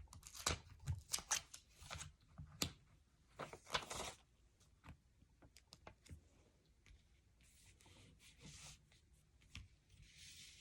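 Plastic Lego pieces clicking and clattering as they are handled and picked through, with a run of quick clicks in the first few seconds, then sparser taps and soft rustling toward the end.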